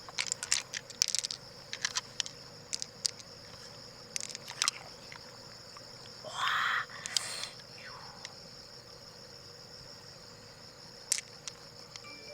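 A steady high-pitched insect trill, with scattered sharp clicks and two short scraping noises about six and seven seconds in.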